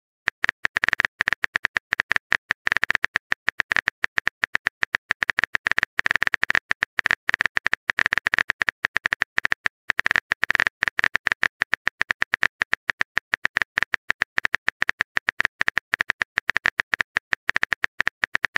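Phone on-screen keyboard typing sound: a fast, irregular run of tapping clicks, several a second, as a message is typed into a chat app.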